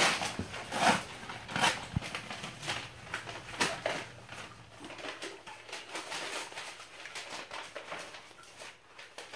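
Irregular soft taps and rustles from a bulldog puppy moving about on a hardwood floor, a few louder knocks in the first few seconds and quieter ones after.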